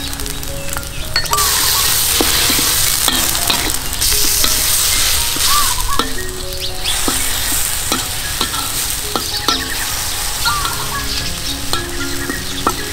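Spice paste sizzling in oil in a steel wok while a metal spatula stirs and scrapes it against the pan. The sizzle swells about a second in and eases after about seven seconds.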